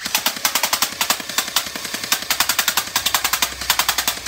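Electric AK-47 style gel blaster firing full auto with the trigger held down: a rapid, steady rattle of shots from its motor-driven gearbox, run on an 11-volt battery through a contact trigger switch.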